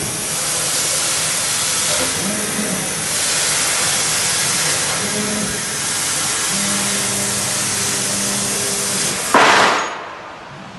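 Fiber laser cutting carbon steel plate: a loud, steady hiss of assist gas from the cutting nozzle, with a low machine hum that comes and goes. About nine seconds in there is a short, louder burst of hiss, after which the sound falls away as the cutting stops.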